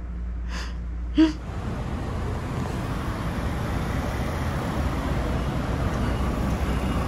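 A woman's brief laugh, then steady street traffic noise with a low rumble.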